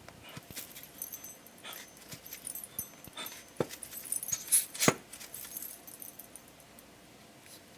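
Scattered light clicks and taps of thin wooden organizer pieces being handled and fitted together by hand, with the sharpest knocks about four and a half and five seconds in.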